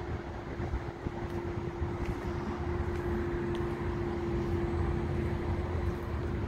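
Peterbilt 389 semi truck's diesel engine idling steadily, a low rumble with a steady hum from about a second in.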